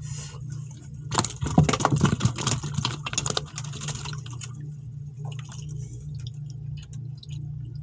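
Quick clattering and splashing of water from about one to four seconds in, then a few scattered ticks, over a steady low hum.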